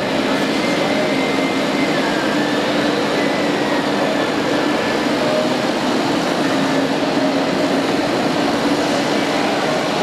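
Radio-controlled model excavator and screening plant running: a steady mechanical whine of small electric motors and hydraulic pumps, with held tones that step up and down in pitch as the machines work, over a steady hall murmur.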